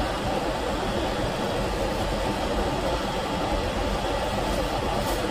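A heating torch burning with a steady, even rush, heating a seized broken exhaust-manifold bolt towards red hot so that the metal expands and the bolt can be extracted.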